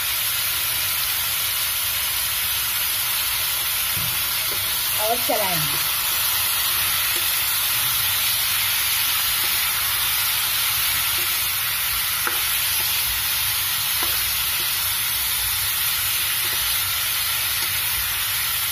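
Chicken pieces sizzling steadily in hot oil in a pan over a high flame, stirred with a spoon as they sear and give off their water. A brief falling tone sounds about five seconds in.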